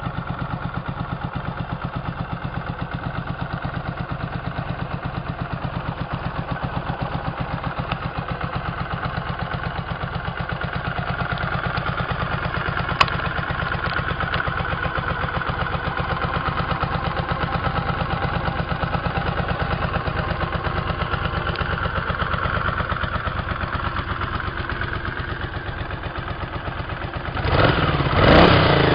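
Honda CX 500 C's liquid-cooled V-twin idling steadily with an even pulse, and a single sharp click about halfway through. Near the end the throttle is opened and the engine revs up, louder and rising in pitch.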